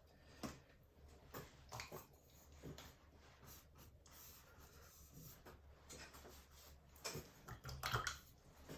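Faint scratches and light taps of a paintbrush working acrylic paint on a canvas, over a low steady hum.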